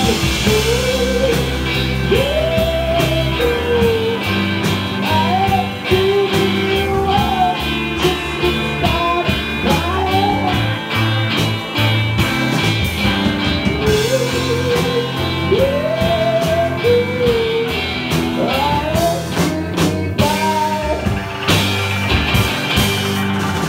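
Live rock band playing: electric guitars, bass and a drum kit with frequent cymbal and drum hits, under a man singing a wavering melody.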